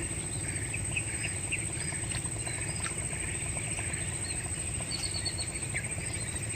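Outdoor ambience of small birds chirping with many short calls, over a steady low rush and a constant thin high-pitched whine.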